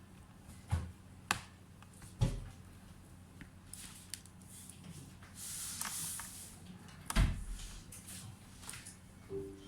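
Handling noises: a few sharp knocks and clicks, the loudest about seven seconds in, with a brief hiss around the middle.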